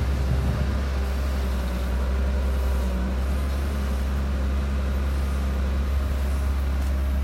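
Dump truck's engine running steadily, a constant low drone with road and mechanical noise over it.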